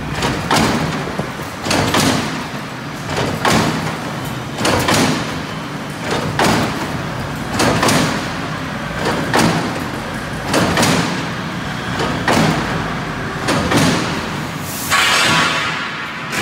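Gabion (hexagonal wire mesh) weaving machine running: a heavy repeating mechanical stroke about every one and a half seconds as it cycles. Near the end comes a short hissing rattle.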